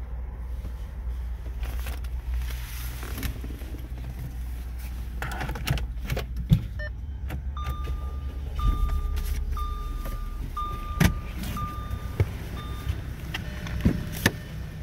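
Audi A5 cabriolet's key-in-ignition warning chime beeping six times, about once a second, the reminder that sounds when the door is opened with the key still in the ignition. It comes over a low car rumble in the first half, with sharp clicks and knocks of keys and door.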